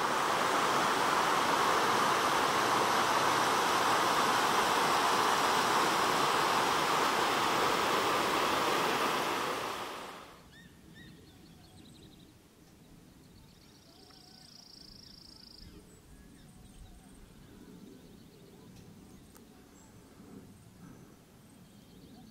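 Mountain creek rushing over rocks, a loud steady rush of water that fades out about ten seconds in. Quiet open-air ambience follows, with a brief high whistle-like tone about halfway through.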